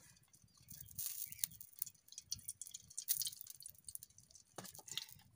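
Cooking oil poured into a hot aluminium kadai, sizzling and crackling faintly in short spells, about a second in and again about three seconds in.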